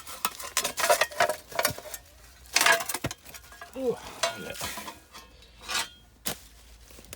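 Scraping, crunching and clinking of a person clambering out over rubble and debris on the concrete step of an Anderson air raid shelter: a run of irregular short scrapes and knocks, the loudest about two and a half seconds in.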